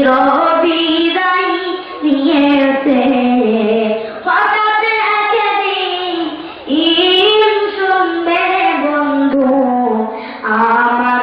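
A child singing a slow, drawn-out melody in a high voice, in phrases of about two seconds with short pauses for breath.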